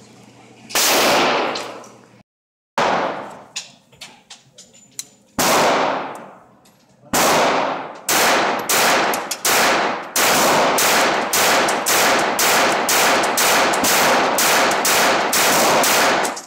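.22 LR semi-automatic pistol shots with a long echo after each. A few single shots come seconds apart, then from about eight seconds in a steady string of roughly two shots a second.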